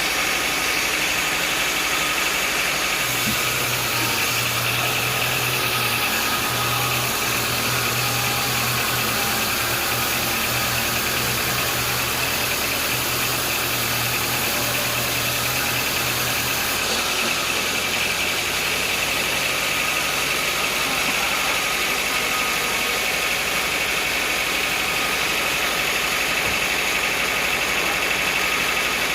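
Sawmill machinery running steadily, with a constant mid-high whine; a deeper hum joins about three seconds in and drops out after about fourteen seconds.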